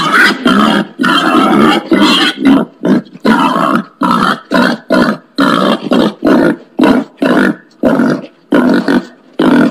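Wild pig making a rapid series of short, harsh grunts, about two a second, which become shorter and more clipped in the second half.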